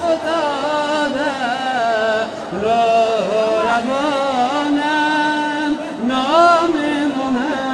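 A man chanting solo in a melismatic style: one voice with long held notes that waver and bend in pitch, broken by short pauses.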